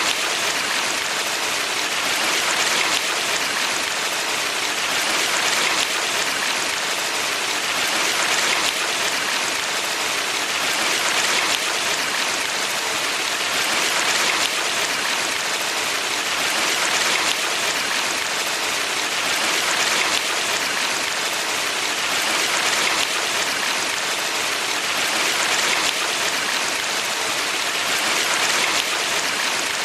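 Rushing water of a valley stream, a steady hiss-like flow that swells gently about every three seconds.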